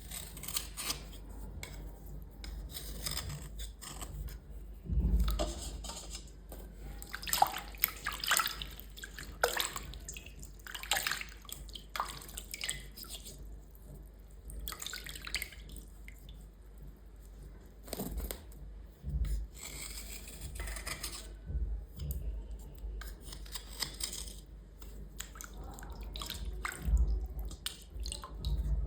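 Wet scrubbing and scraping on small items being cleaned, in irregular strokes of different lengths, with water dripping.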